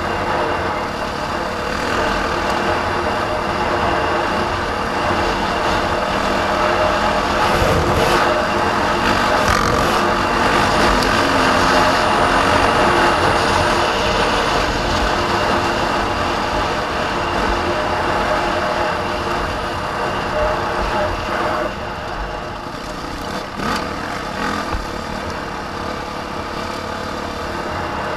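A vehicle's engine running steadily during a ride, under a constant rushing noise, a little quieter in the last few seconds.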